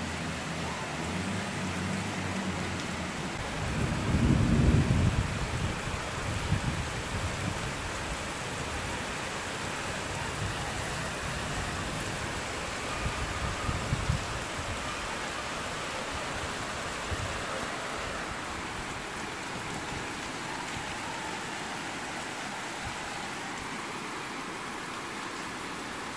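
Steady rain falling, an even hiss. A low rumble swells about four seconds in and lasts a couple of seconds, with a shorter one around fourteen seconds.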